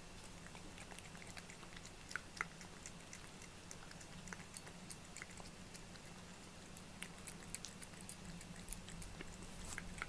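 A cat licking and chewing soft food off a plate: a run of small, irregular wet clicks and smacks.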